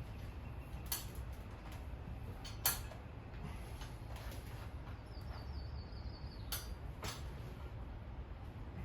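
Scattered sharp clicks and clinks, about four or five, of hands and tools working a dirt bike tire onto its wheel rim, over a low steady hum.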